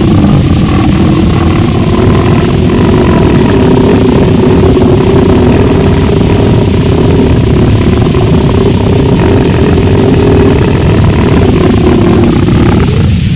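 Gorenoise track: a wall of loud, distorted, heavily compressed noise over a steady low rumble, with a held drone-like tone through it. Just before the end the tone drops out and the noise thins to a hiss.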